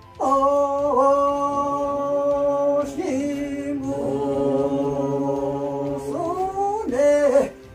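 Unaccompanied singing in long held notes that slide from one pitch to the next, with short breaks between phrases.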